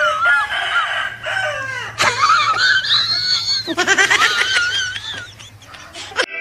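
High-pitched shrieking cries with a quavering, wobbling pitch, coming in several stretches: one about two seconds in climbs steeply, and another shortly after breaks into rapid stuttering pulses like cackling.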